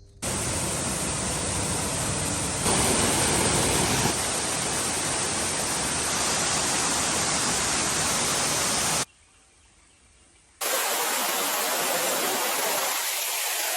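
Rushing water of a waterfall, a steady loud roar. It is cut into several short clips and drops out for about a second and a half past the middle before coming back thinner in the bass.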